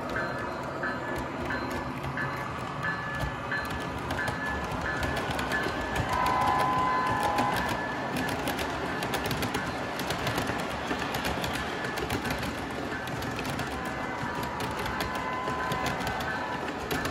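O-gauge model train (RailKing ES44AC diesel pulling freight cars) running on three-rail track: a steady rolling rumble with clicking wheels. A bell dings about three times a second, and a short two-note diesel horn sounds about six seconds in, with fainter horn notes near the end.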